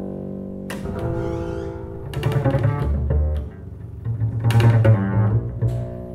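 Two double basses in free improvisation: one bowed, holding long sustained notes, the other plucked, with several sharp attacks, loudest a little past the middle.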